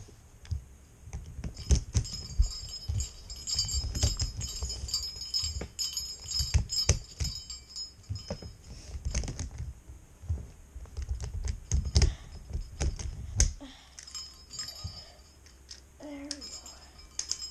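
Plastic Rubik's cube pieces clicking and rattling as they are snapped back together, with knocks on the tabletop. The clicking stops about three-quarters of the way through.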